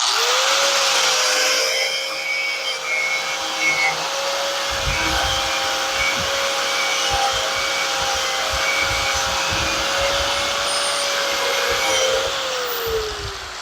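Handheld electric power tool, likely a grinder or wire brush, running at steady speed while stripping paint off the steel go-kart frame to bare metal for welding. About twelve seconds in it is switched off and winds down with a falling whine.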